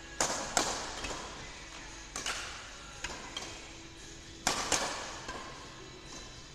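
Badminton rackets striking a shuttlecock during a doubles rally: sharp, irregular cracks, several pairs of them a fraction of a second apart, each echoing in a large hall.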